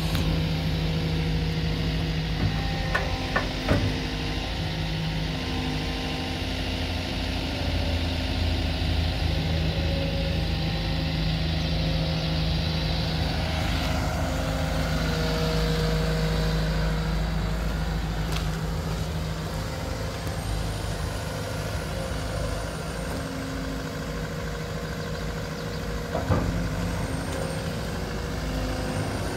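A 2018 Komatsu PC170LC-11 hydraulic excavator's diesel engine runs steadily under load while the boom and demolition grapple move and the upper structure swings. A few short knocks come about three to four seconds in and again near the end.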